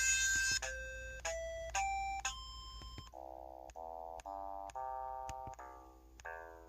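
Electronic button tones from an EV-W350 device: a string of short synthesized beeps at changing pitches, then from about three seconds in a quicker run of fuller, chord-like notes, each ringing briefly and fading.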